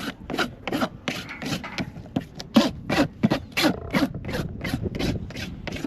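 Farrier's hoof rasp filing a horse's hoof during shoeing, in quick, even strokes of about three to four a second.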